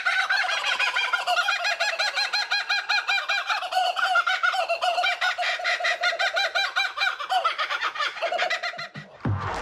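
Laughing kookaburras giving their laughing call: long runs of rapid repeated notes rising and falling in pitch, several overlapping, fading out near the end.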